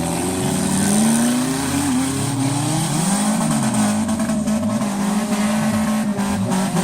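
Demolition derby car engines revving hard, their pitch rising and falling again and again with more than one engine note overlapping.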